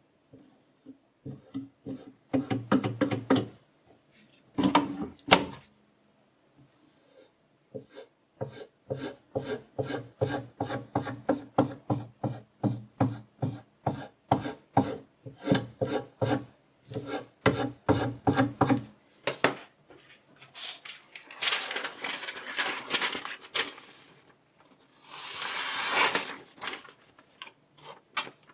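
A knife blade worked in a run of quick, even rubbing strokes, about two or three a second, then two longer rasping passes near the end.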